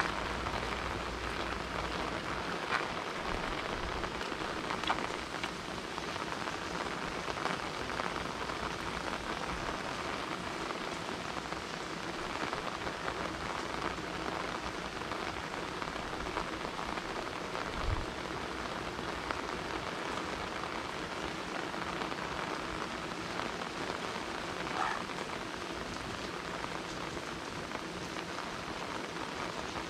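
Steady rain falling on hard surfaces, a continuous hiss with scattered individual drop ticks. There is a single brief low thump about eighteen seconds in.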